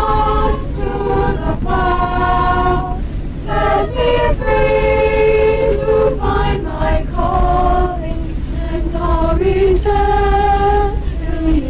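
Children's choir singing unaccompanied, holding long notes, over the steady low hum of an airliner cabin.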